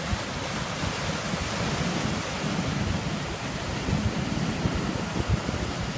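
Sea surf washing in, a steady rushing with gusts of wind buffeting the microphone.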